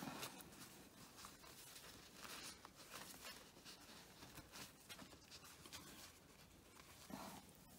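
Near silence with faint, scattered rustling of paper napkins being handled.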